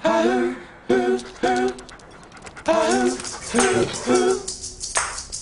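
Background rock music: a short pitched phrase repeats over and over, with percussion ticking in about halfway through.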